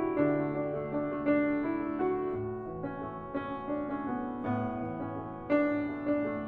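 Background piano music: sustained chords and melody notes, with a new note or chord struck about every second.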